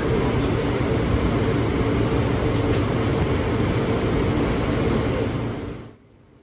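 Steady rushing noise of an indoor shooting range's air-handling ventilation, with one faint click about two and a half seconds in. The rushing drops away about six seconds in, leaving a low hiss.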